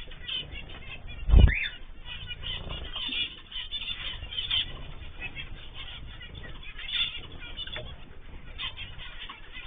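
Cage birds chirping and calling, with one loud thump about a second and a half in.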